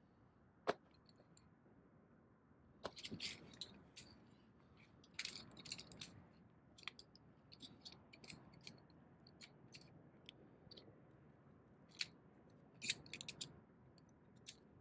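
Irregular light clicks and clinks of camp cooking gear being handled, a sharper knock about a second in and small clusters of clinks around three, five to six and thirteen seconds in.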